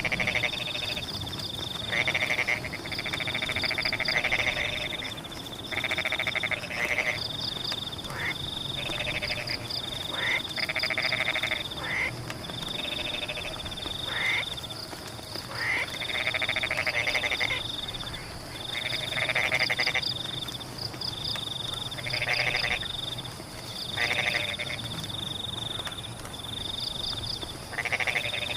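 A chorus of frogs in a rain-soaked rice field: overlapping croaking calls, each about a second long, every second or two. A high-pitched trill repeats in short bursts over a steady hiss of rain.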